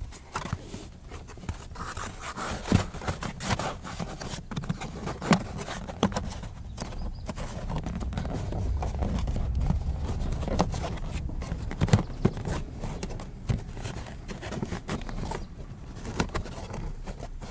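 Plastic interior trim panel of a Skoda Octavia A5 being handled and pushed back into place under the glovebox: irregular plastic knocks, clicks and taps, over a low rumble of handling that swells in the middle.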